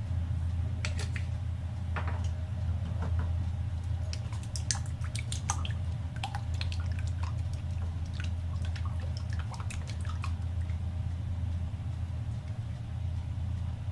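A utensil stirring a wet egg-and-vegetable mixture in a bowl, with squishing and many irregular clicks against the bowl, over a steady low hum.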